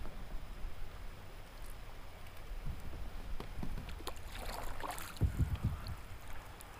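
Kayak being paddled on a river: paddle splashes and a few knocks against the hull, with a cluster of low thumps a little after the middle, over a steady low rumble of wind on the microphone.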